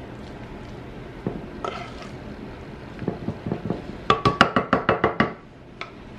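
Wooden spoon spreading ground-meat filling in a ceramic casserole dish: soft pats and scrapes, then a quick run of sharp knocks with a ringing tone, about seven a second, as the spoon is tapped against the dish.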